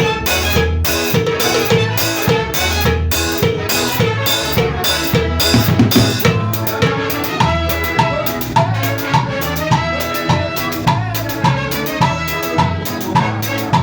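A band playing an instrumental passage at rehearsal, with drum kit, bass and a pitched melody instrument. The drum strikes become sharper and more regular about halfway through.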